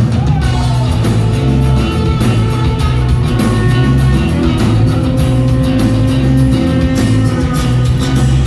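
Live rock band playing an instrumental passage with no vocals: electric guitar and bass over a steady beat, loud and unbroken.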